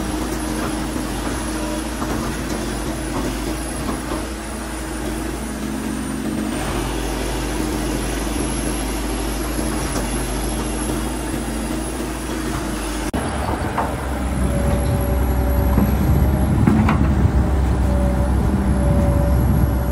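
Kobelko SK200 excavator's diesel engine running steadily, heard close to the open engine bay. About two-thirds of the way through, the sound switches to a louder, deeper engine rumble, with a higher tone that comes and goes.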